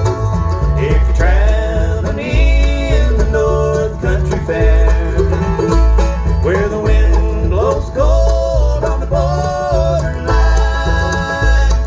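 Country-bluegrass music with banjo and guitar over a steady bass beat, a gliding lead melody on top.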